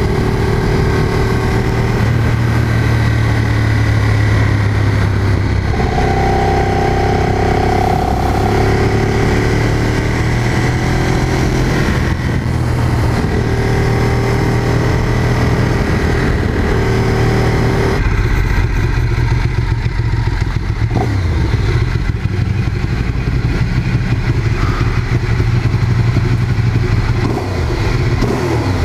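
Ducati Streetfighter 848's L-twin engine running under way, its pitch shifting with the throttle. The sound changes abruptly about two-thirds of the way through and becomes lower and less busy.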